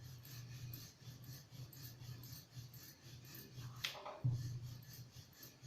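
Rolling pin working khakhra dough thin on a rolling board: a faint, rhythmic rubbing with back-and-forth strokes about twice a second, and a short click a little before the end.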